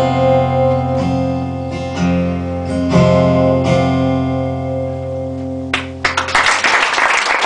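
Final chords of a song strummed slowly on a guitar and left to ring out; about six seconds in, an audience starts applauding.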